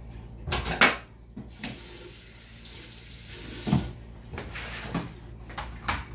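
Kitchen tap running into a stainless steel sink as vegetables are rinsed, with a sharp clatter about a second in. The water stops near the middle, followed by a few knocks and clicks.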